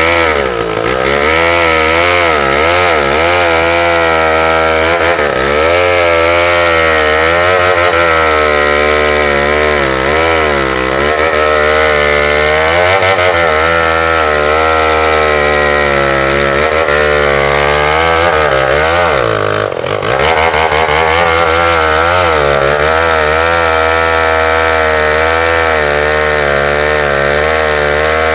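Tecogold 700 two-stroke chainsaw running hard while cutting into bengkirai hardwood, its engine pitch wavering up and down as the chain loads and frees in the cut. About two-thirds of the way through there is a brief dip in the engine note with a short sharp sound.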